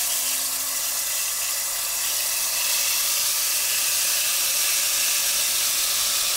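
Tamarind pulp poured into hot oil with spluttering mustard seeds in a kadai, sizzling loudly and steadily.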